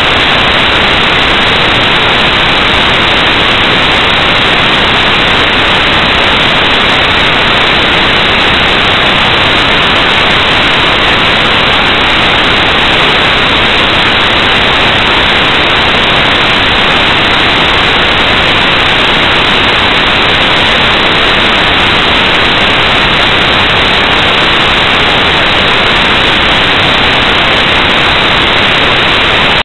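Loud, steady static hiss with nothing else in it, the electronic noise of a security camera recorder's audio channel.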